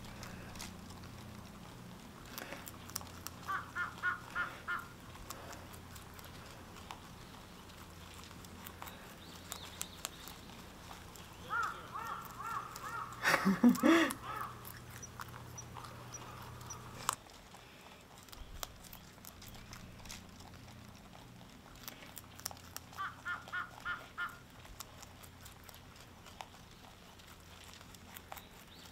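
Rabbits munching carrot pieces, a soft scattered crunching, while a bird calls in three short runs of quick repeated notes. About halfway through comes a brief loud voice-like cry that falls in pitch.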